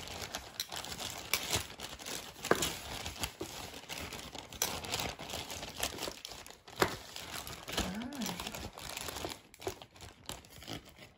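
Plastic takeout container and its clear lid crinkling and crackling as they are handled, with many sharp little clicks.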